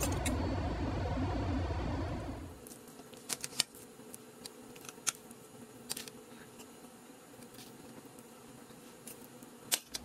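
A steady noisy hum for about the first two and a half seconds, then quiet with a few sharp, light clicks of a metal fork against a plate as a stuffed salmon fillet is cut.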